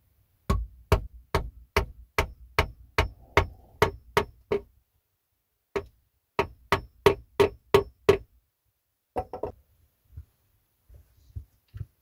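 A hand hammer striking a pronged tool held against logs in a steady run of blows, about two and a half a second. There are about eleven blows, a short pause, about eight more, then a few lighter taps near the end, each blow with a brief metallic ring.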